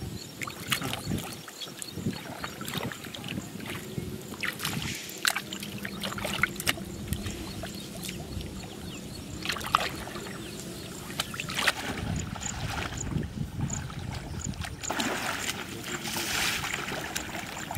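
Shallow floodwater sloshing and splashing around men wading and working a fishing net by hand, with scattered small splashes. About fifteen seconds in, the splashing grows louder and denser as a man churns the water with his arms.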